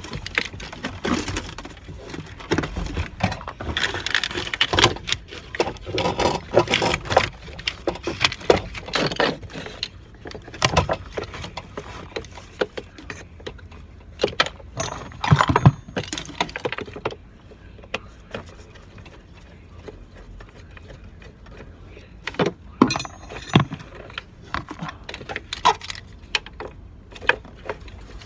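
Irregular clatter, clicks and knocks of the truck's plastic hanging-type A/C evaporator housing and its metal fittings being handled and worked loose by hand, busiest in the first third, with a loud knock about halfway through and another burst of knocks near the end.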